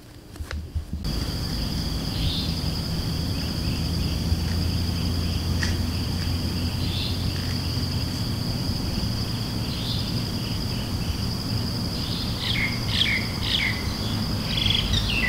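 Insects trilling in one steady, unbroken high tone over a low steady rumble, with birds chirping faintly now and then and in quick runs over the last few seconds.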